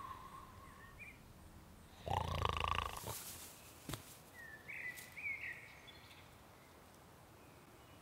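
A loud, harsh, rising voice-like burst lasting about a second, starting two seconds in, followed by a sharp click. Then a few short whistled chirps, like birdsong, over quiet woodland background.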